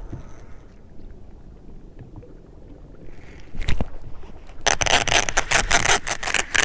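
Soft water and wind noise, a thump about three and a half seconds in as the hook is set, then from about four and a half seconds a loud, rapid clicking rattle from a baitcasting reel being cranked against a hooked bass. The reel sounds rough.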